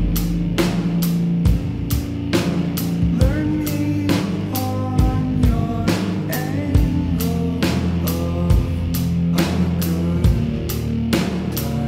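Background rock music: drums keep a steady beat over sustained low bass notes, with a short melodic line in the middle.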